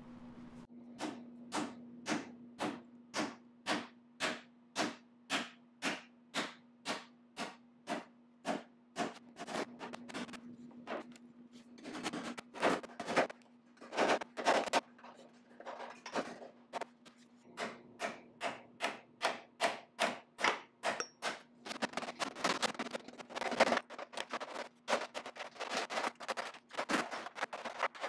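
Sheet-steel patch panel being hammer-formed over a wooden form: a steady series of hammer blows on the metal, about two a second, then louder and faster, denser blows near the end.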